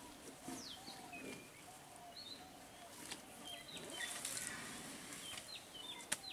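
Wild birds calling: scattered short, high chirps over a lower, repeated series of short arched notes, with a sharp click near the end.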